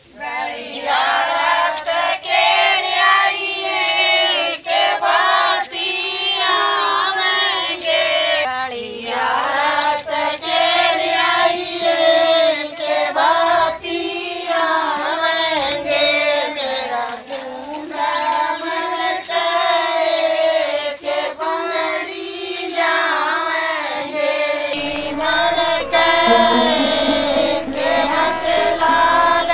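A group of women singing a Haryanvi folk song together in unison, as sung to welcome the bhat party at a wedding.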